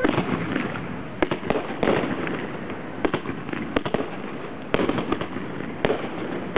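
Aerial fireworks going off in quick, irregular succession. Sharp bangs, a dozen or more, sound over a continuous rushing noise.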